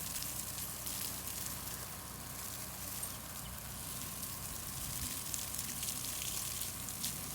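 Steady hiss of water spraying from a garden hose nozzle.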